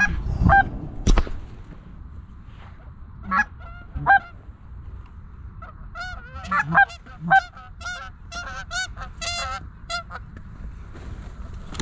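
Canada geese honking: a run of short, repeated honks that comes thickest from about three seconds in until near the end. A single sharp crack sounds about a second in.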